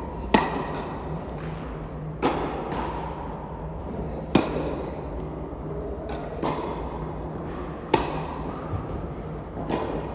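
Tennis balls being hit back and forth in a rally, sharp racket strikes and ball bounces about every couple of seconds. The loudest hits come near the start, about four seconds in and about eight seconds in, and each one rings out in the echo of a large indoor hall.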